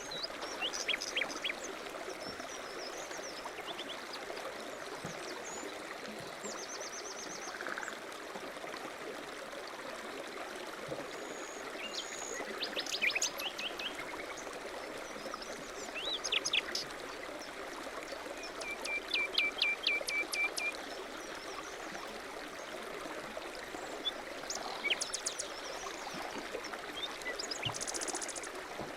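Small birds chirping and trilling over a steady rush of flowing water, with short scattered calls and one quick run of repeated notes a little past the middle.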